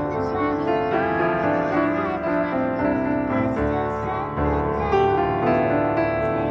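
Background piano music, slow and sustained chords.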